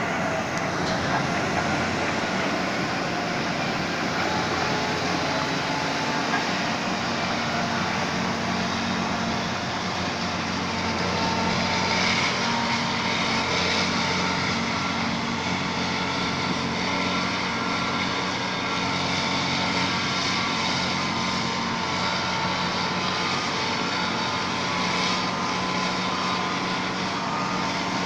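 Liebherr PR754 crawler bulldozer's diesel engine running steadily under load while ripping, a constant deep engine drone under a broad mechanical rumble.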